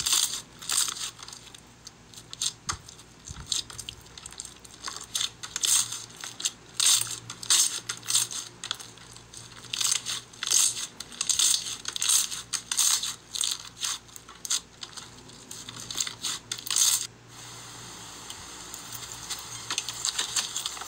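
Hands pressing and squishing a translucent slime, making dense, irregular crackling clicks and pops. Shortly before the end it changes to a steadier, softer crackle as a different slime is kneaded.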